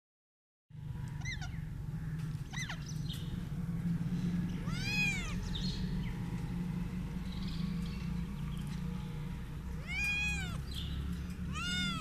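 Domestic cat meowing: three drawn-out meows that rise and fall in pitch, about five seconds in, about ten seconds in and near the end, with two short calls earlier. A steady low hum runs underneath.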